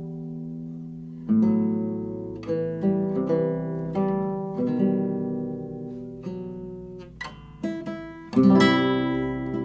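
Solo classical guitar played fingerstyle: chords struck and left to ring and fade, with single picked notes and a quick run between them, and a loud full chord about eight and a half seconds in.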